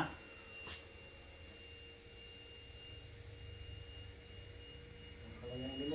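Faint steady room hum: a thin high-pitched whine and a lower steady tone over a low rumble, with one soft click about two-thirds of a second in.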